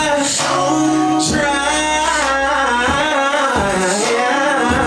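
A singer performing live with a band through the stage PA: sung phrases with held, wavering notes and runs, over a sparse accompaniment whose low end drops out for short stretches.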